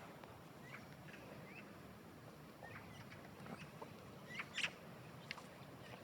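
Quiet outdoor background with scattered short, high chirps, and one louder, shriller squeak about four and a half seconds in.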